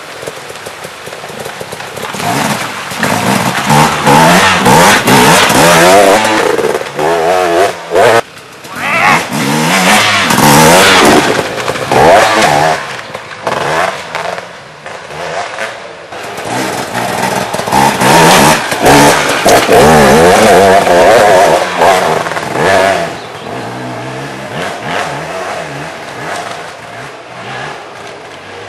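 Enduro dirt bike engines revving hard, their pitch rising and falling with the throttle. They grow loud three times as bikes pass close, and are quieter in between.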